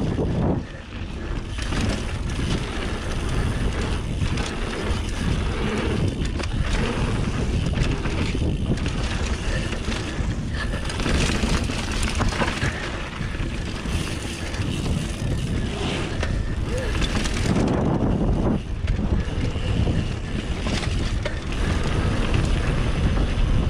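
Mountain bike riding fast down a dirt trail: wind rushing over the microphone, tyres rolling on packed dirt and gravel, and the bike rattling and knocking over bumps.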